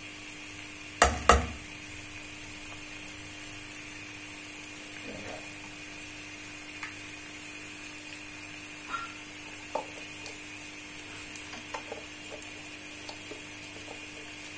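Aloo palak and chicken curry sizzling faintly in the pan on the lit stove, with scattered small crackles. Two sharp knocks come close together about a second in.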